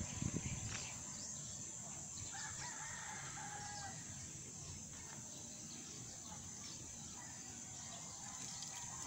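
A rooster crows once, faintly, starting about two and a half seconds in and lasting over a second, over a steady high-pitched drone and low rumble.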